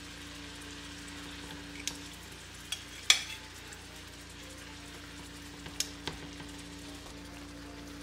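Pork chops sizzling in butter and onions in a nonstick frying pan, a steady frying hiss. Metal tongs click against the pan and plate a few times as the chops are laid in; the loudest click is about three seconds in.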